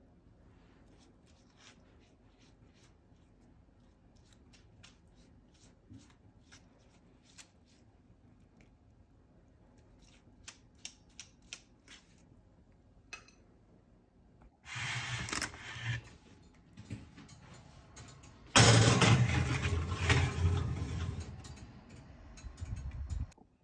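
Faint soft taps of a pastry brush dabbing egg wash onto pastry, then two louder stretches of rustling and scraping as a parchment-lined metal baking tray is handled and slid into the oven; the second, longer stretch is the loudest and cuts off suddenly near the end.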